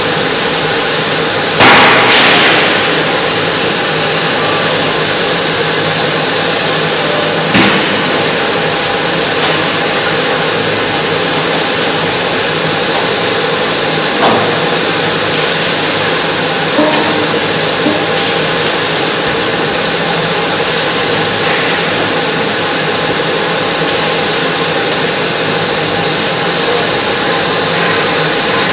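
Yanmar Vio30 mini excavator's diesel engine running steadily, with a loud sharp knock about two seconds in and a few lighter knocks later.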